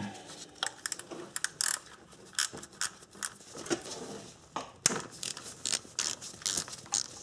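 Ratchet wrench clicking in repeated short runs as it turns out the mounting bolt of a crankshaft position sensor.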